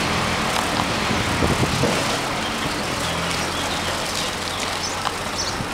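A motor vehicle's engine running with a steady low hum, heard over a continuous rush of wind and road noise.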